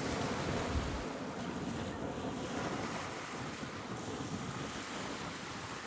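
Steady rushing of sea water and wind, with wind buffeting the microphone in low rumbles.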